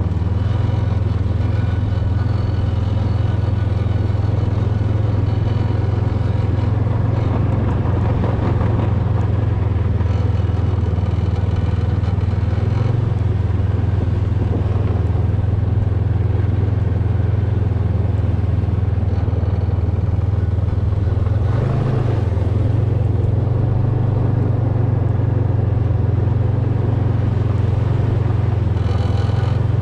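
Snowmobile engine running at a steady speed while riding, a constant low drone with a slight change in pitch about two-thirds of the way through.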